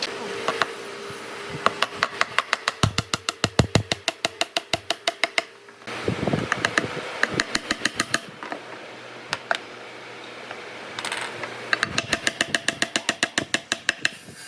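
Fast, even strokes of a hand tool working wood, about eight a second, in three runs of a few seconds each with short pauses between.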